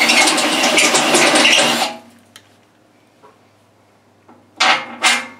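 Cordless drill running a step drill bit into the steel of a tractor loader bucket, cutting for about two seconds before stopping. Near the end there are two brief bursts of the drill.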